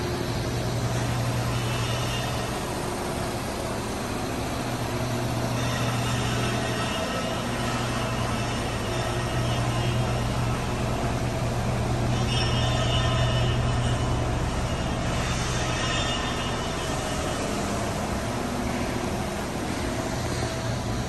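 Steady low mechanical hum over an even hiss.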